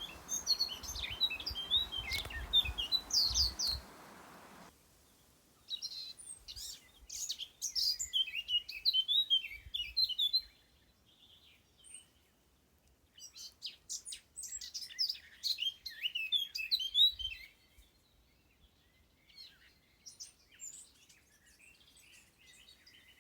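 Several small birds chirping in quick, overlapping flurries, with lulls of a second or two between bursts. The calls grow fainter near the end. A steady background hiss underneath the first few seconds stops abruptly.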